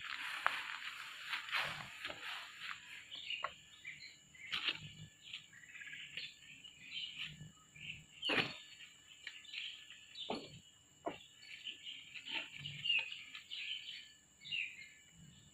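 Small birds chirping in short, repeated twittering calls, over a faint steady high tone. A few sharp clicks cut in, the loudest about eight seconds in.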